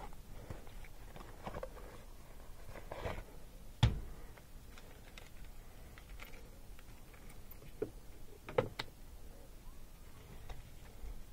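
Scattered clicks and knocks from handling a clamp meter and its test leads among the air handler's wiring, with one sharp knock about four seconds in the loudest and a few smaller clicks near the end.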